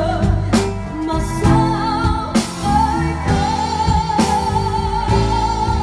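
A female vocalist sings a slow Vietnamese ballad live with a band, with drums marking the beat with a cymbal crash about every second. Partway through she holds one long note with vibrato.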